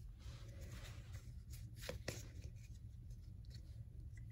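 Faint handling of trading cards and their packaging, with a few soft clicks about two seconds in, over a low steady hum.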